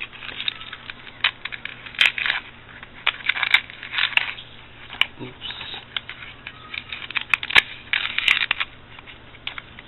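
Rustling, crinkling and light clicking of small plastic items and packaging handled close to the microphone: irregular, short, scratchy taps and crinkles with pauses between them.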